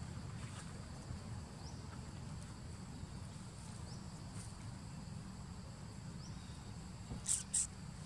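Forest ambience of insects: a thin, steady high-pitched drone with faint short rising chirps, over a low rumble. About seven seconds in come two short, sharp, very high chirps in quick succession, the loudest sounds here.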